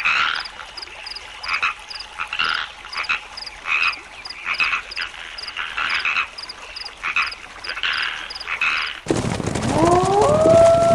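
Frogs croaking in a chorus at night, with a separate high, regular ticking call about twice a second. About nine seconds in, a louder sound with long sliding pitched tones cuts in over it.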